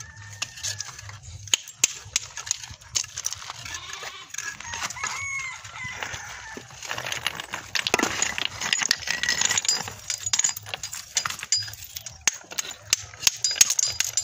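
A rooster crowing in the background, once at the very start and again about five seconds in, over repeated sharp taps and clicks of a hammer on the stone cladding being set into mortar. Around the middle comes a stretch of rougher scraping.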